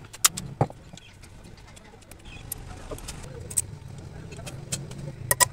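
Quiet workshop background with a low hum and scattered light clicks and taps, and a few sharper clicks near the end.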